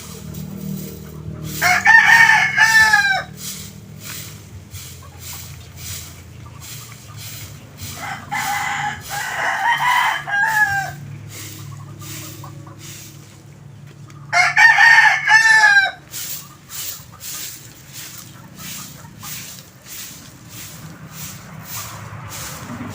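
Rooster crowing three times, each crow ending in a falling note, over a steady low hum and a run of short ticks.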